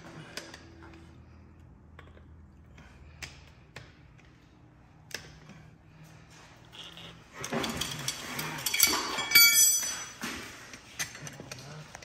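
Hand tools clinking and scraping on the top of a front shock absorber as its thread-locked top nut is worked loose, with a louder stretch of metal clatter and a ringing clang about nine seconds in.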